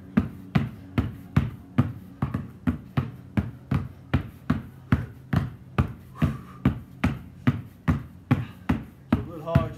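Two basketballs dribbled hard on concrete in a steady rhythm of about three bounces a second, each a sharp smack with a short low ring after it.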